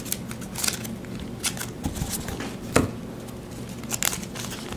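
Plastic wrapper of a trading card pack crinkling and tearing as it is opened, with scattered crackles and one sharper click a little past halfway.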